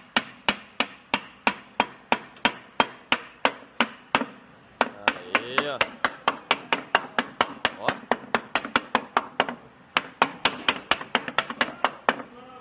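Hammer blows on a hardwood block held over a cylinder liner, driving the wet liner down into a tractor engine block. The strikes come fast and even, about four a second, with two short breaks, near four and near ten seconds in.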